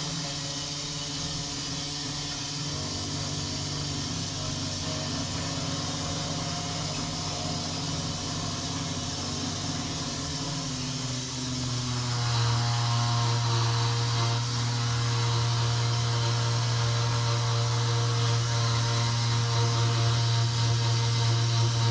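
Armitage Shanks toilet making a steady humming drone after being flushed. About twelve seconds in, the drone drops lower in pitch and grows louder.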